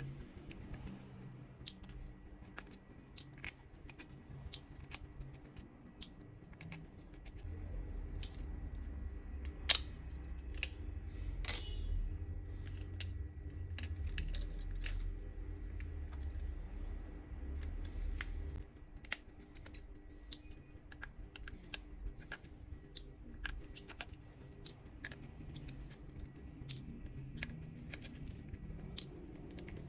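Small, sharp, irregular clicks and taps of hand tools and plastic parts on a smartphone being taken apart. A low rumble joins in about a quarter of the way through and stops about two-thirds of the way in.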